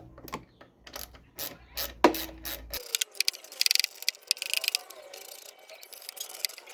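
Socket ratchet clicking as 5/16-inch bolts are backed out of a lawnmower's base cover, with sharp metal clinks and knocks in the first half and a fast run of ratchet ticks a little past the middle.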